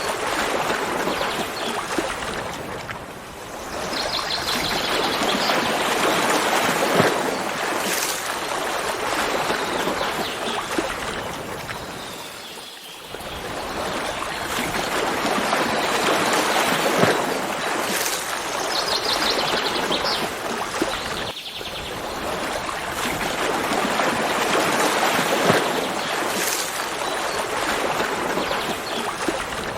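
A stream running steadily, its rush swelling and easing in slow waves, with a bird calling briefly in quick repeated high notes twice.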